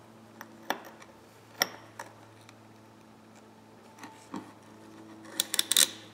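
Small metal parts of an old Plomb half-inch ratchet clicking and tapping as the steel cover plate is set over the gear and pawl in its head: a few separate clicks in the first two seconds, two more around four seconds in, and a quick flurry of clicks near the end, the loudest.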